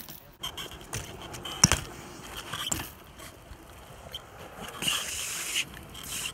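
BMX bike riding on smooth concrete: tyres rolling, with several sharp knocks of the wheels and frame coming down, the loudest about a second and a half in, and a hissing tyre scrape around five seconds in.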